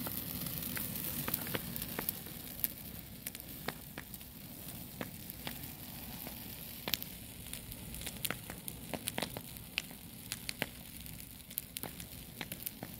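Open brush fire burning, with steady crackling and frequent sharp pops.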